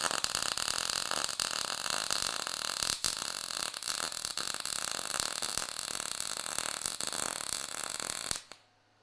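Wire-feed welder arc crackling and sizzling steadily as a bead is laid. There is a brief break about three seconds in, and the arc cuts off suddenly near the end.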